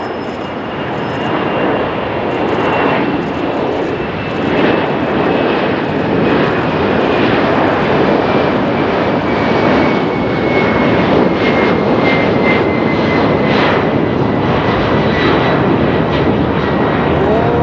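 Boeing 747 freighter's four turbofan engines at takeoff power during the climb-out: a loud, steady jet rumble that builds over the first few seconds, with a high whine that slowly falls in pitch.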